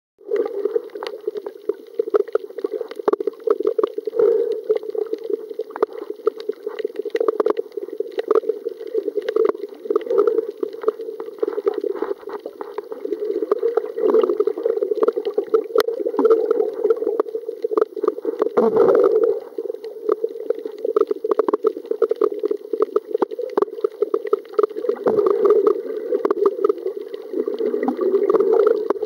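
Underwater sound of a reef, recorded with the camera submerged: a steady, muffled rush of water scattered with many small crackles and clicks, with one louder, deeper gurgle about two-thirds of the way through.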